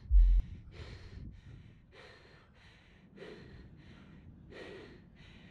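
A person panting hard, about two quick breaths a second, winded from sprinting up a steep sand dune. A short burst of wind buffets the microphone at the very start.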